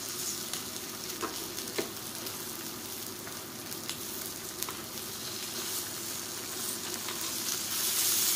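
Food frying on the grill plate of an electric 2-in-1 hotpot grill: a steady sizzle with scattered small pops, getting a little louder near the end.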